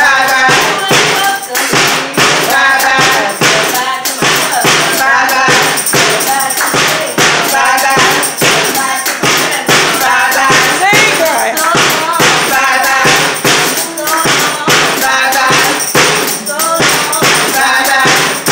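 A small group of women singing a church song together, with hand claps and a tambourine keeping a steady beat.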